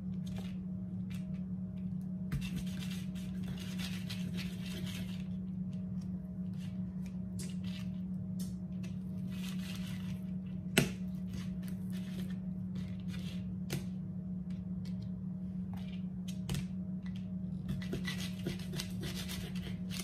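Kitchen knife slicing smoked sausages lengthwise on a plastic cutting board: repeated taps of the blade against the board and stretches of rasping as it draws through, with one sharper knock about eleven seconds in. A steady low hum runs underneath.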